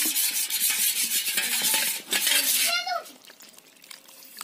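A metal spoon stirring and scraping around a steel bowl of water, swishing and rasping in quick strokes. It stops about three seconds in.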